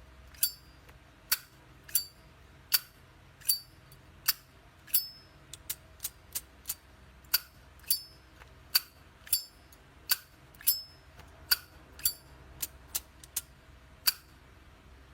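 Solid-brass Zippo lighter's lid being flicked open and snapped shut again and again: some twenty sharp metallic clinks with a short ring, about one every two-thirds of a second, a few coming in quicker runs.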